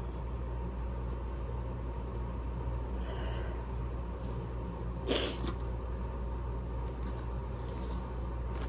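Steady low background hum, with one short sniffle about five seconds in and a couple of fainter breaths; the person is congested from a cold, between sneezes.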